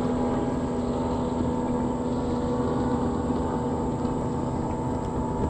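Boat motor running steadily, a constant hum with a few fixed pitches.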